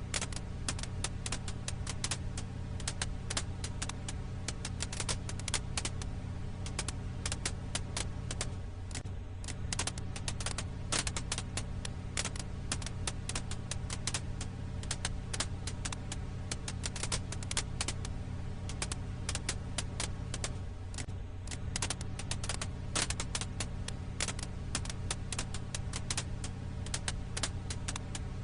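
Firewood crackling in a campfire: dense, irregular pops and snaps over a steady low hum.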